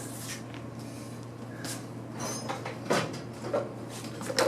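Hand tools and a socket set being taken out and set down, with scattered metal clinks and clatters, the loudest about three seconds in and near the end. A steady low hum runs under them.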